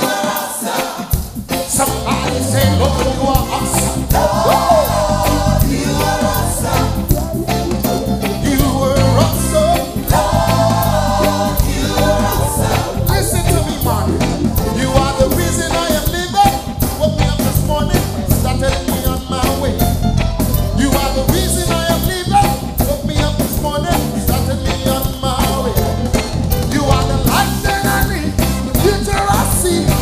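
Live gospel band playing a reggae-style praise song, with lead and backing singers over it; the bass and drums come in about a second in and keep a steady beat.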